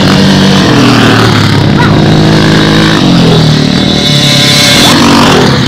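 Off-road race motorcycle engine running hard along a sandy desert track, its note dropping in steps twice and rising again near the end.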